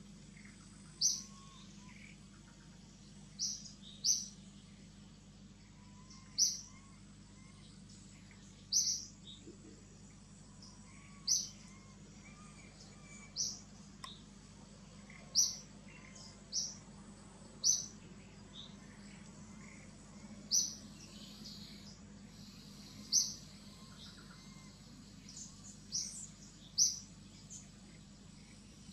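A bird calling: one short, high chirp repeated every one to three seconds, over faint forest background noise.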